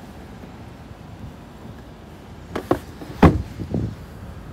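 2020 Chevy Trax front passenger seat being worked to fold flat: two quick clicks about two and a half seconds in, then a louder clunk and a few smaller knocks from the seat mechanism and backrest. A steady low background rumble runs underneath.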